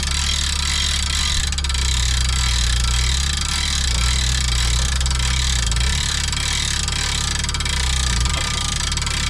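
An engine running steadily with a low hum; its note drops and grows louder from about two to six seconds in and again around eight seconds.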